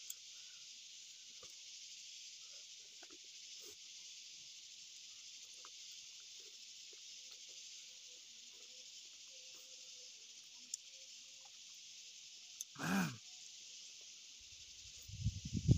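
A steady, high insect chorus drones in the woods, with faint small clicks and smacks of people eating. About 13 seconds in, a short hummed 'mm' rises and falls, and near the end come a few louder low thumps and rumble, like handling of the microphone.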